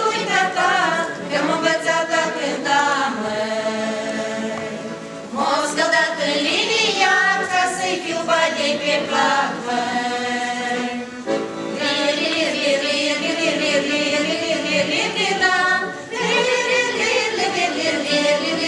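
A group of women singing a Romanian folk song together as a vocal ensemble, several voices at once, with three short breaks between phrases.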